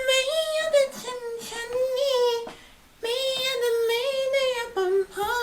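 A high voice singing long, wavering held notes with no clear words, in two phrases with a short break about two and a half seconds in.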